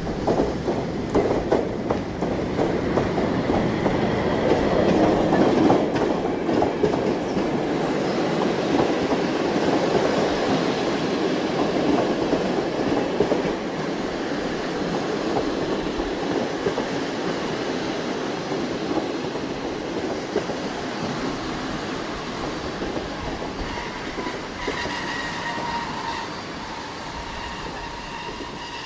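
Mumbai suburban local train running on the track, its wheels rattling and clacking in a dense rumble that gradually eases off. High wheel squeal starts near the end as the train slows.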